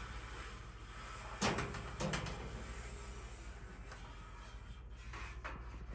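A couple of short light knocks from parts being handled inside an opened-up dryer, over a low steady hum.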